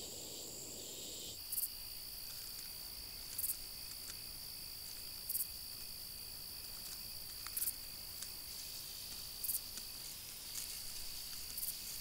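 Insects trilling: a steady high-pitched drone with a short, higher chirp about every two seconds.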